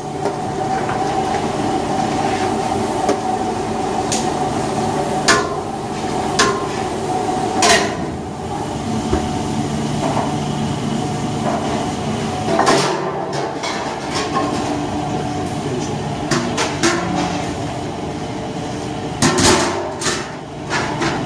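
A large aluminium pan of saffron water and rice boiling hard over a burner: a steady hiss and hum. Sharp metallic knocks come every few seconds, and near the end a steel lid clanks as it is set on the pan.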